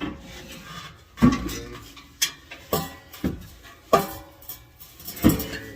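The pickup's old exhaust pipe clanking against the underside of the truck as it is wrestled out: about six sharp metal knocks, each ringing briefly. The pipe keeps catching on the frame.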